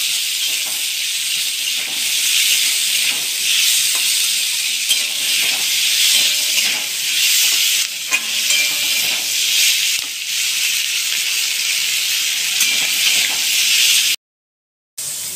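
Chopped onion, capsicum and tomato sizzling in hot oil in a metal wok as they are stir-fried, with a spatula clinking against the pan now and then. The sound drops out for about a second near the end.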